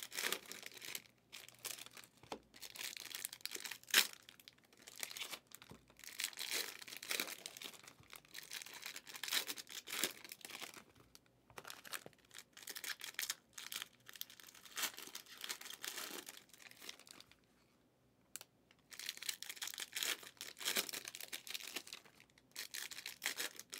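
Foil trading-card pack wrappers crinkling and tearing as packs are ripped open and cards handled, in irregular bursts. A sharp click comes about four seconds in, and there is a short lull near eighteen seconds.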